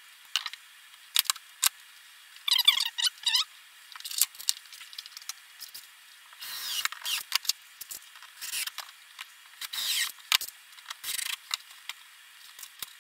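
Workshop handling noises on a workbench: short clicks, knocks and scrapes as boards are shifted and cordless drills and tools are set down, with a rattling clatter a few seconds in.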